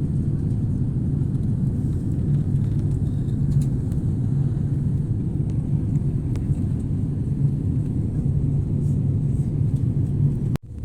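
Steady low rumble of an airliner's engines and airflow heard inside the passenger cabin, dropping out for a moment near the end.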